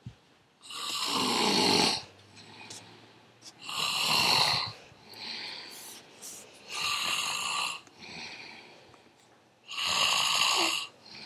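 A sleeping man snoring loudly: four snores about three seconds apart, with softer breathing sounds between them.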